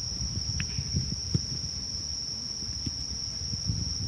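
Insects trilling in one steady, unbroken high-pitched tone. Underneath is a low, uneven rumbling noise with a few soft thumps.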